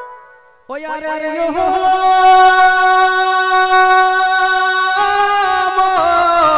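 A man singing one long held note into a microphone: his voice scoops up into the note about a second in, holds it steady with a slight waver near the end, then falls away.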